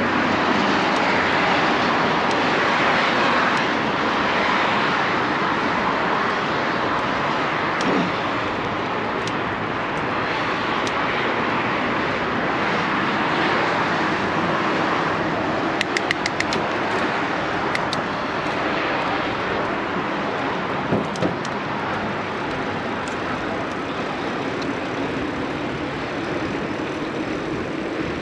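Mountain bike in motion on a trail: a steady rush of wind and tyre noise, with a quick cluster of sharp clicks and rattles a little past the middle and a couple more a few seconds later.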